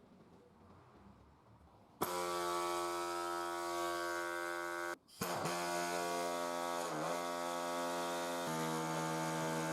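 Small electric power-tool motor switched on and running with a steady hum, its pitch sagging and recovering twice as it is loaded against the work, with a brief cut-out in the middle.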